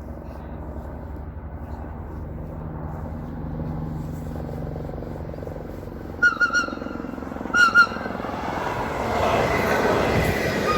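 Electric train running with a steady low rumble and hum. About six seconds in come two quick bursts of short high beeps, then the rumble and rail noise swell as a train draws near.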